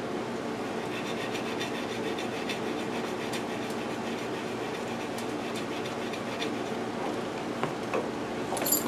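Thin Scotch-Brite pad being rubbed back and forth inside a miter saw motor's brass carbon-brush holder, a soft scratchy scrubbing to clear grime from a brush that was sticking. The scrubbing sits over a steady background hum, with a brief sharp clatter near the end.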